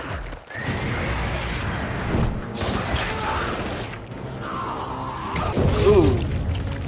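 Film sound effects: a heavy metal tomb mechanism grinding and ratcheting as it opens, then a man's agonised screams as he is impaled.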